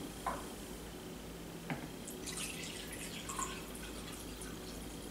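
Apple cider vinegar poured from a plastic gallon jug into a glass measuring cup: faint splashing and trickling, with two light knocks in the first two seconds.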